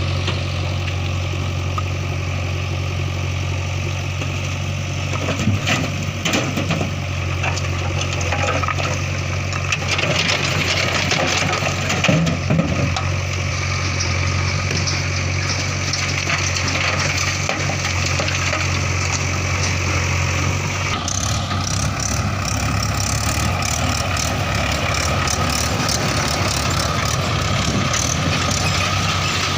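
Heavy diesel engine running steadily, with a few irregular knocks and clatters between about five and thirteen seconds in. The engine note shifts about twenty-one seconds in.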